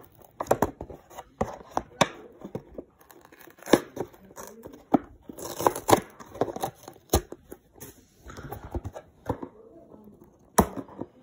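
Toy packaging being torn and crinkled open by hand: an irregular run of sharp crackles and rustles.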